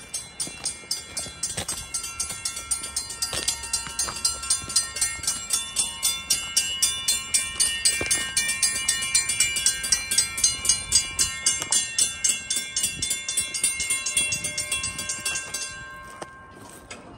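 Mechanical railroad crossing signal bells ringing with rapid, even strokes, more than one bell overlapping, as the crossing is activated by the approaching train; the ringing stops near the end.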